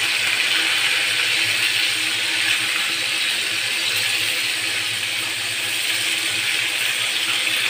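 Chicken pieces frying in a pan of hot oil: a steady sizzle.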